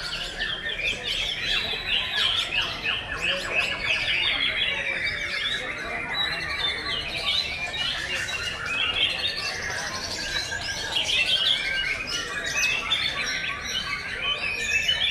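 Several white-rumped shamas (murai batu) singing at once, a dense overlapping stream of rapid note runs and whistled glides that never pauses.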